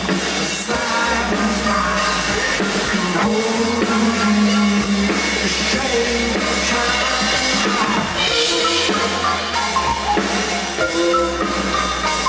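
Live band music: a drum-kit beat of bass drum and snare over sustained bass and pitched melodic notes.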